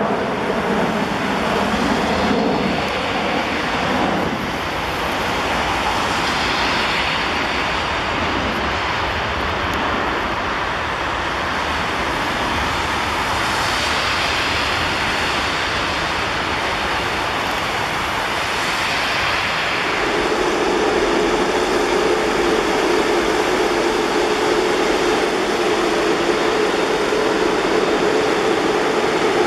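Jet engines of a four-engined Airbus A340 at taxi power: a steady whine and rush as the airliner rolls past. About two-thirds of the way through, a steady engine hum from a de-icing truck takes over.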